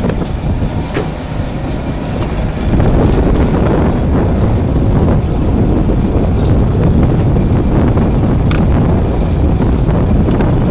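Fishing boat underway, its engine and the rush of the hull blending into a loud, steady noise, with heavy wind buffeting the microphone. It gets louder about two and a half seconds in, and there is a single sharp click late on.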